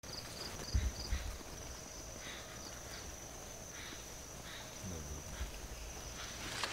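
Insects chirping: a steady high trill with a few short, quick chirps near the start, and a soft low thump about a second in.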